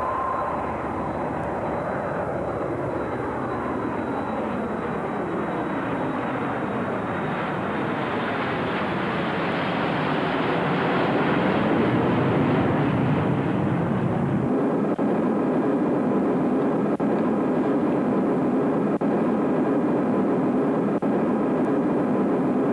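Jet airliner taking off and climbing away: a continuous engine roar, with a sweeping, shifting tone as the aircraft passes, growing louder about halfway through. About two thirds of the way in the sound switches abruptly to a steadier, even drone.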